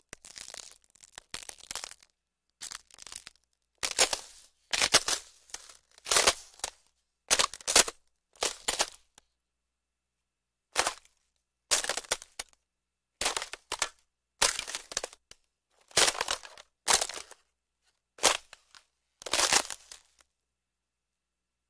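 Ice cracking: a long series of short, sharp crackling and crunching bursts, separated by brief silences, with a pause of over a second about nine seconds in.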